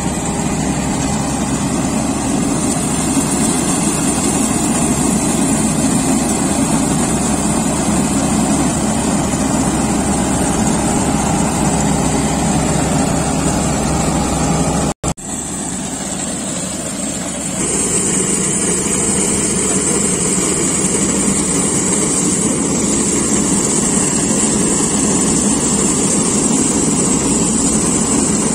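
Preet tracked combine harvester running steadily while cutting soybeans, a continuous engine drone with a high hiss over it. The sound breaks off for an instant about halfway through, then runs a little quieter for a couple of seconds before returning to its full level.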